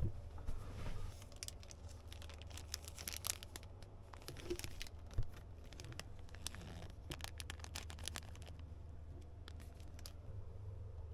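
A thin plastic packet holding foam earplugs crinkling as it is handled in the hand: scattered crackles in two spells a couple of seconds apart.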